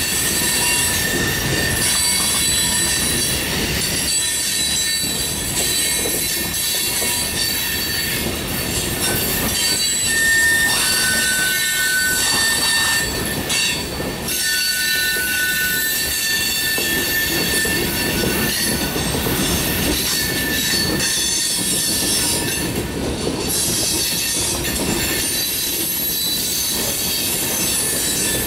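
Loaded coal hopper cars rolling past steadily, their wheels running on the rails, with high wheel squeals coming and going.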